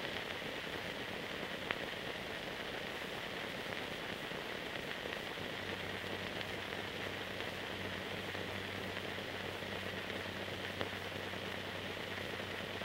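Steady hiss and crackle of an old film transfer with no soundtrack, over a low steady hum, with a sharp click about two seconds in and a fainter one near the end.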